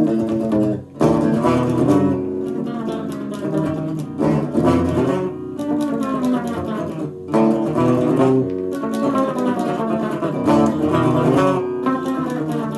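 Unplugged guitar playing a slow riff of ringing chords, with short breaks between phrases.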